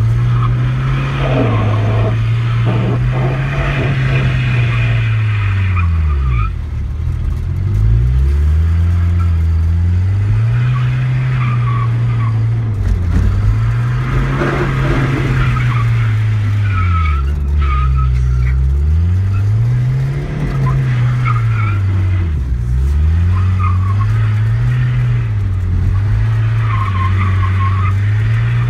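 Mercedes 240D's four-cylinder diesel engine revving up and falling back again and again, about every four seconds, with tyres skidding and squealing through the drifts.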